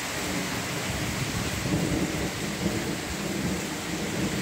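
Heavy rain falling steadily on clay tile roofs, with a low rumble of thunder rolling in about a second in and swelling around the middle.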